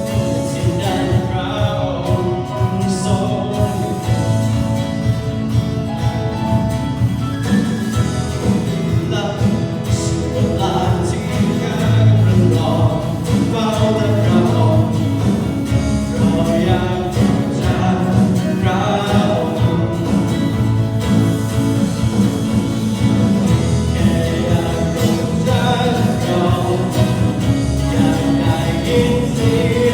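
Worship song performed by a church worship team: several voices singing a melody over band accompaniment with a steady bass.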